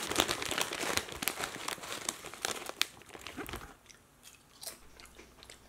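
A bag of Lay's potato chips crinkling as a hand rummages in it, with chips crunching as they are bitten and chewed. Dense crackling for about the first three seconds, then quieter, scattered crunches.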